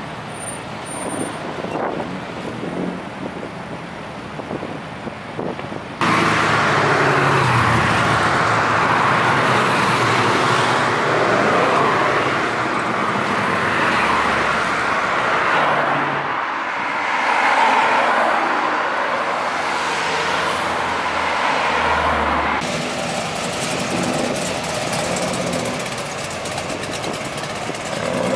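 Classic and muscle cars driving past one after another, engines running over tyre and road noise. The sound jumps louder about six seconds in and drops back somewhat later on.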